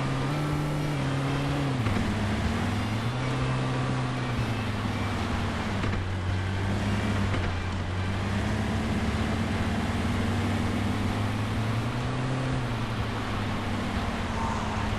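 Jeep engine running steadily under load, its pitch dropping and rising again several times as the revs change.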